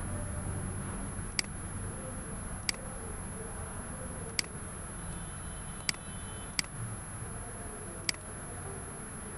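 Computer mouse clicking six times, single sharp clicks spaced a second or two apart, over a steady low background hum.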